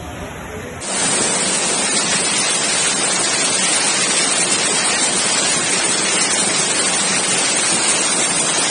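Floodwater rushing through a street as a fast, churning torrent, a loud steady rush of water. It starts abruptly about a second in and replaces a quieter noise.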